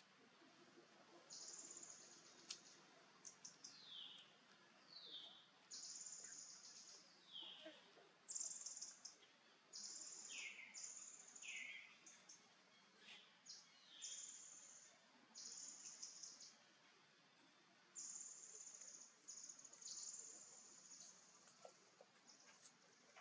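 Faint outdoor ambience of birds and insects calling: a series of high, buzzy calls about a second each, with a few short chirps that slide downward in pitch.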